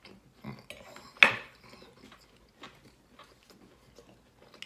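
Cutlery and dishes clinking in a series of light clicks, with one sharper, louder clack about a second in.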